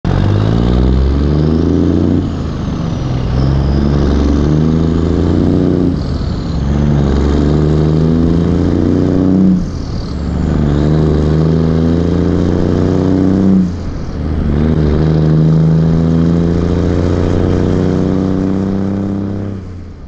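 Semi truck's diesel engine pulling up through the gears: it revs up in each gear and drops back at four shifts, every three to four seconds, then fades out near the end.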